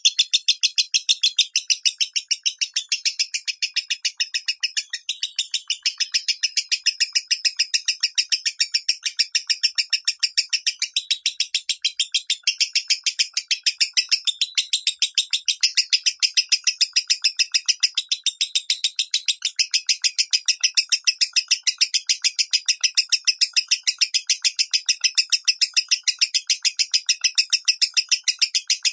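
Lovebird chirping in the fast, high "minor" style: an unbroken run of short, shrill chirps at about three to four a second.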